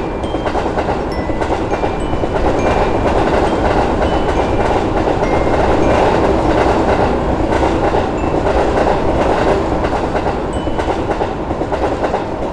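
A train running past on the rails: a loud, steady rolling rumble with wheel clatter.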